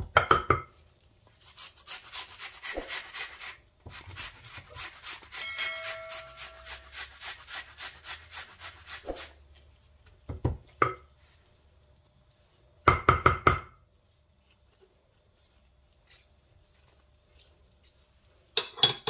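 A red onion rasped against a handheld metal grater in quick, even strokes, about four or five a second, with pauses between runs. A few louder knocks and scrapes come in short clusters, about ten and thirteen seconds in and again near the end.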